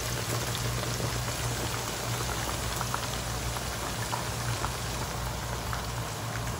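Chicken pieces deep-frying in very hot oil during the second fry of a double fry: a steady, dense crackling sizzle over a low hum.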